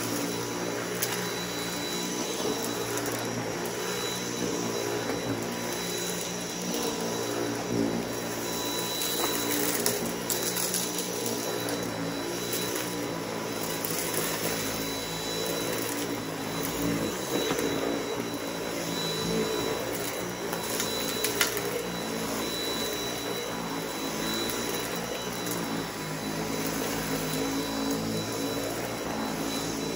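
Dyson V8 cordless stick vacuum running steadily with its powered cleaner head on a rug: a constant motor hum under a thin high whine. A few sharp clicks and crunches of debris being sucked up break in now and then.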